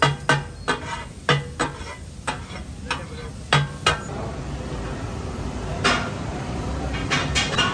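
Metal spatulas striking and scraping a large iron tawa in irregular clanks over a steady sizzle of fish frying. The strikes are spread through the first half, thin out into mostly sizzle, then come in a quick flurry near the end.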